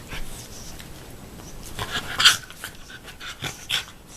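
Dogs panting and breathing hard during rough play, with a sharp noisy burst a little past two seconds in and a few shorter ones near the end.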